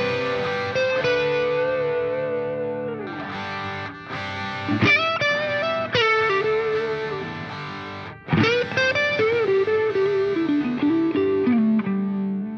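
Background instrumental music led by a guitar playing a melody, with short breaks about four and eight seconds in.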